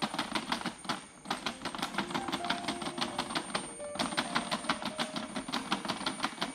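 Background music with a fast, even ticking beat and short held notes.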